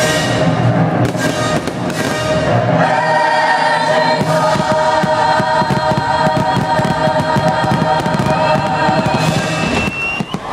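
Fireworks show music: a choir singing long held chords, with many fireworks bangs throughout.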